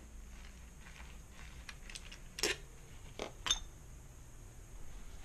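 A few light metallic clinks and knocks from small engine-kit parts being handled on a table: the loudest about two and a half seconds in, then two more about a second later.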